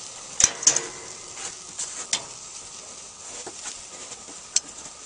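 Steaks and hot dogs sizzling on a grill with a steady hiss, and several sharp clicks of metal tongs against the grate, the loudest about half a second in.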